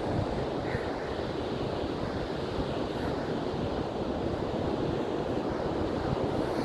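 Sea surf washing on the beach under a steady rush of wind that buffets the microphone.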